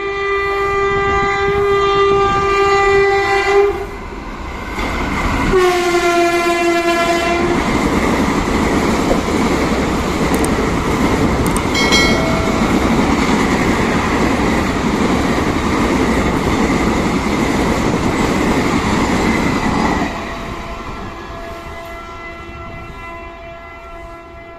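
Horn of an Indian Railways WAP-4 electric locomotive sounding a long blast, then a second, slightly lower blast about two seconds later. The express then passes at speed with a loud, steady rushing rumble and wheel clatter for about fourteen seconds, which drops off sharply; a horn tone is faintly heard again near the end.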